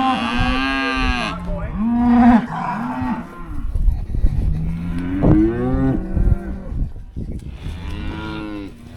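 Cattle bawling, several long pitched moos overlapping one after another, as calves are being sorted off their mothers at weaning.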